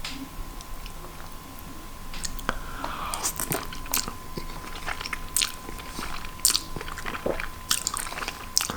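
A person chewing and eating noodles close to the microphone, with irregular wet mouth clicks and smacks.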